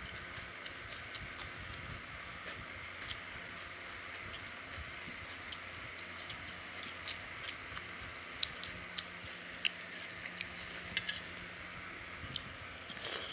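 Hands mixing rice and curry on steel thali plates: scattered small, irregular clicks and ticks, more of them in the second half, over a steady high background hiss.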